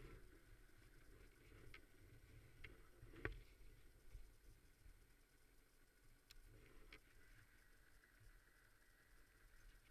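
Near silence: a faint low rumble with a few soft clicks scattered through it, the loudest about three seconds in.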